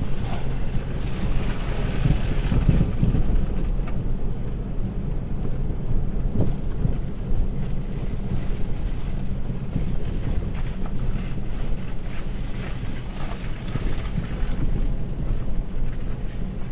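A 2011 Jeep Patriot driving over a rutted dirt track, heard from inside the cabin: a steady low rumble of engine and tyres, with a few brief knocks as it goes over bumps.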